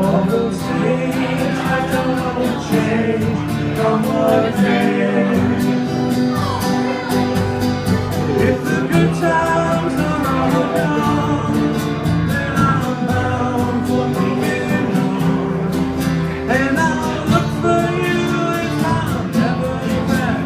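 Acoustic guitar strummed in a steady rhythm under a singing voice, a live folk song performance.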